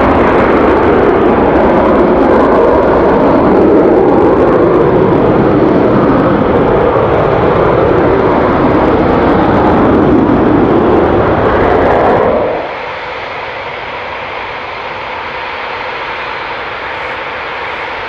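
Eurofighter Typhoon's twin Eurojet EJ200 turbofans at takeoff power: a loud, steady jet roar as it rolls and climbs away. About twelve seconds in it cuts off suddenly to much quieter, steady jet noise from the next Typhoon lined up on the runway.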